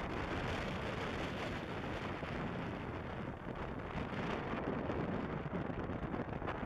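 Steady wind noise on the microphone: an even rushing hiss with low buffeting.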